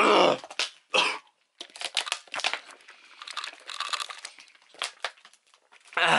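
A man's disgusted groan at the start and a gagging, tongue-out noise near the end, with about four seconds of irregular crinkling and crackling in between.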